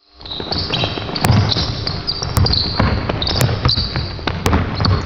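Basketball being dribbled on a hardwood gym floor, about one bounce a second, with sneakers squeaking on the court.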